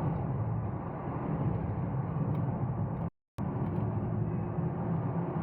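A vehicle travelling along a road: steady engine and road noise. It cuts out completely for a moment a little past halfway, then resumes.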